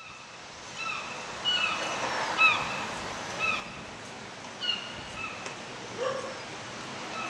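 Short, high yelping animal cries, several in quick succession and some falling in pitch, over a steady background hiss.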